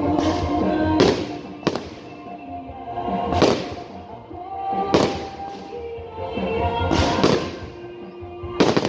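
Aerial fireworks shells bursting overhead, about seven sharp bangs one to two seconds apart, the last two in quick succession near the end. Music plays steadily underneath.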